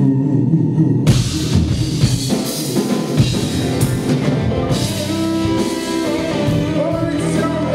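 Live rock band playing, recorded from the audience. A quieter guitar passage gives way about a second in to the full band with drum kit and cymbals, under a male lead vocal.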